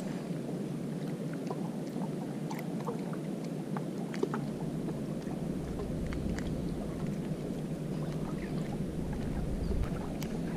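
Steady outdoor noise of wind and water at the harbour's edge, with scattered faint light clicks. A low wind rumble on the microphone grows stronger from about halfway through.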